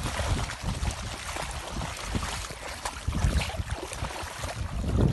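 Water splashing as a pug paddles out through open water, with wind gusting on the microphone.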